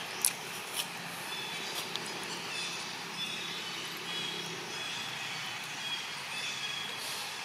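Steady outdoor background noise with faint high chirps scattered throughout, and two sharp clicks in the first second.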